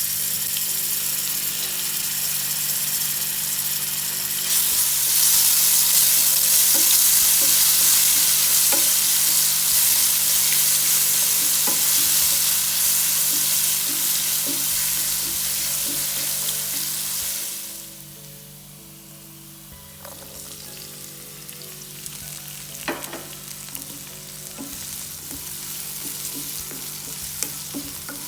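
Food sizzling loudly in hot oil in a pan, growing louder about four seconds in. Past the middle it drops off quickly to a quieter sizzle, with the spatula tapping and scraping the pan as the food is stirred.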